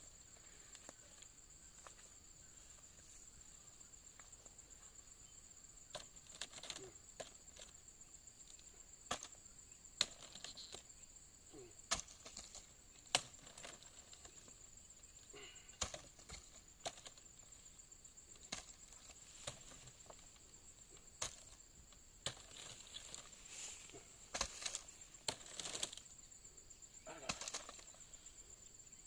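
Oil palm harvesting: a dozen or so sharp chopping knocks at irregular intervals, a blade cutting into palm bunch stalks and fronds.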